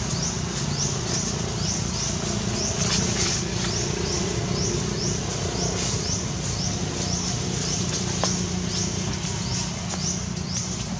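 A short, high-pitched rising chirp repeated steadily about two to three times a second, over a constant low background rumble.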